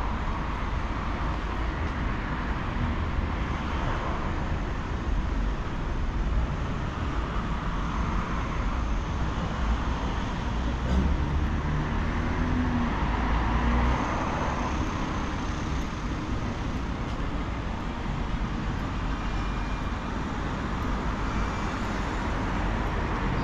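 Steady city street traffic: cars and other road vehicles passing, growing a little louder between about eleven and fourteen seconds in.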